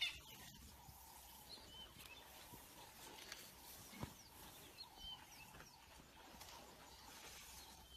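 Near silence: faint outdoor ambience with a few faint, brief bird-like chirps and one soft thump about four seconds in.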